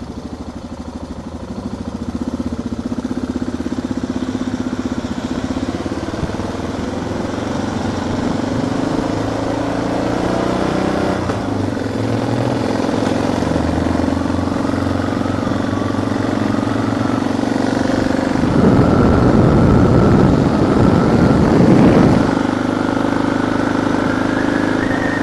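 Suzuki DR650 single-cylinder motorcycle engine pulling along, its note rising and dropping back a few times as the rider changes gear, heard from inside the helmet. Wind rush on the loose microphone beside the rider's cheek grows louder and rougher for a few seconds near the end.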